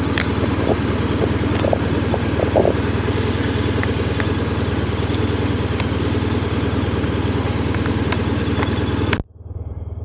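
Motorcycle engine idling steadily, picked up by a lavalier mic inside the helmet, with a few small clicks from the mic lead being handled. About nine seconds in the sound cuts off abruptly as the mic is unplugged, and a quieter, duller version of the idle follows.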